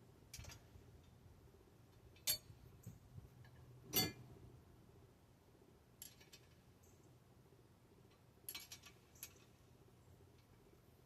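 Scattered light metallic clinks and taps of hand tools and bike parts being handled, the two loudest about two and four seconds in, with a quick run of small clicks near the end.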